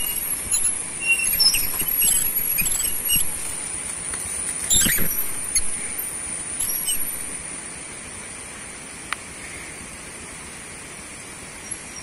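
A small commuter motorcycle riding slowly away over a rough, muddy dirt track, its engine fading about two-thirds of the way through. Short high chirps sound over it in the first half.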